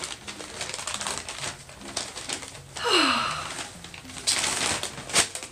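Shipping packaging around a mail-order plant rustling and crinkling as it is unwrapped by hand, in quick irregular crackles. About three seconds in comes a short vocal sound falling in pitch.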